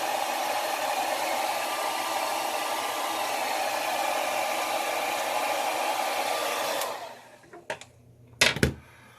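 Small handheld Blown beard blow dryer running steadily on its first setting, then switched off about seven seconds in, its motor whine gliding down as it winds down. A few sharp knocks follow near the end.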